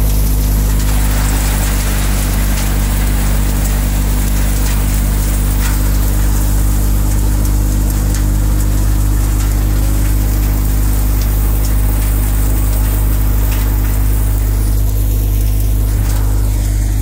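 Groundnut thresher running at a steady speed as vines are fed through it: a constant low machine hum under a dense rattling hiss of vines and pods being beaten, with a few sharp ticks.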